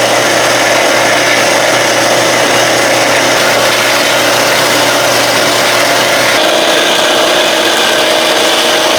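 Roll-In HW1212 metal-cutting bandsaw running and cutting through medium-carbon (1045–1060) steel stock, a loud steady sawing noise over a motor hum. Its tone shifts slightly about six and a half seconds in.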